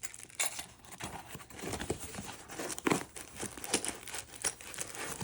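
Plastic packaging crinkling and rustling in irregular bursts, with light clicks, as small lock parts are handled and unwrapped.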